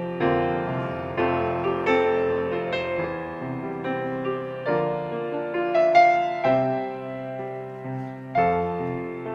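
Piano playing a slow hymn passage without singing: struck chords and single notes that ring on and fade.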